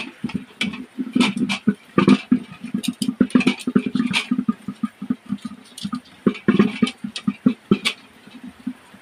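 Hands rubbing and turning a raw plucked duck in a metal basin: irregular wet slaps and knocks of the carcass against the basin, thinning out near the end.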